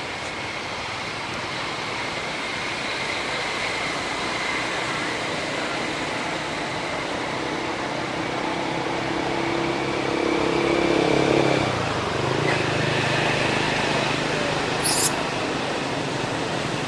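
Steady outdoor background noise with a motor vehicle's engine hum that swells about ten seconds in and drops away a second or so later. A brief high squeak comes near the end.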